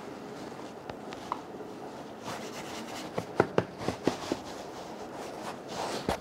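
Hands working a thin sheet of rolled crostoli dough on a floured marble worktop: soft rubbing and rustling, with a quick run of light taps and pats about three to four seconds in as the sheet is pressed flat.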